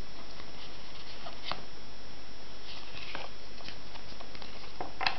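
Steady hiss with faint, scattered crinkles and taps of a booster pack and trading cards being handled.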